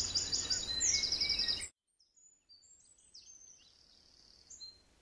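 Outdoor ambience with small birds chirping steadily over a low background hum. About a second and a half in, it cuts off abruptly, leaving only faint chirps.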